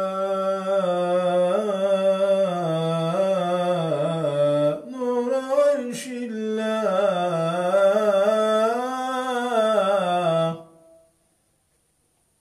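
A man's solo voice chanting the salâ in Arabic, a long melismatic line held and ornamented with winding turns of pitch. It breaks briefly for breath about five seconds in, with a short click about six seconds in, and stops near the end.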